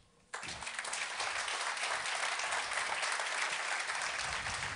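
Audience applauding: a dense, even clapping of many hands that starts suddenly just after the start and begins to thin out near the end.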